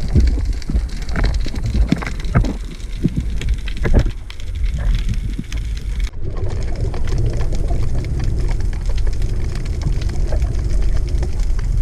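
Underwater sound picked up by a camera housing: a steady low rumble of moving water with dense crackling and clicks over it. About six seconds in the sound changes abruptly and the hiss thins.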